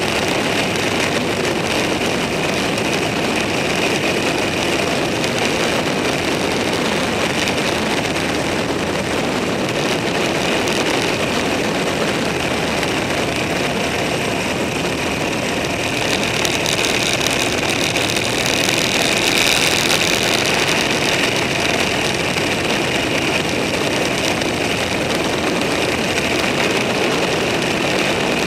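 Steady engine and road noise of a motor vehicle on the move at an easy pace, swelling a little about two-thirds of the way through.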